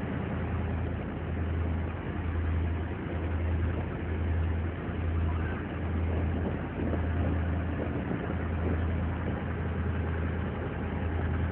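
A fishing boat's engine running steadily, a low drone that swells and eases about once a second.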